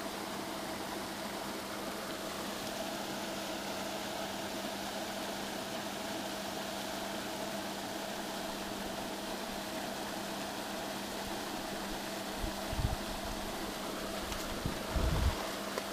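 Lake aerator running with a steady mechanical hum and hiss, holding one constant low tone. Two dull low bumps come near the end.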